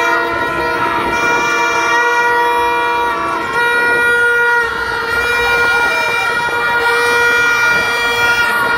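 Several horns blown by spectators, long overlapping steady blasts at different pitches, over a crowd cheering and shouting. A lower-pitched horn stops about three and a half seconds in.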